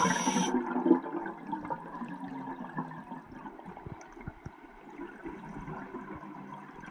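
Scuba exhaust bubbles rushing underwater, the end of an exhalation through the regulator, cutting off about half a second in. A quieter stretch of faint underwater noise with a few small knocks follows.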